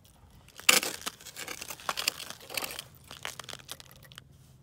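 Irregular crunching and crinkling noises, loudest about two-thirds of a second in, then a scatter of smaller crackles.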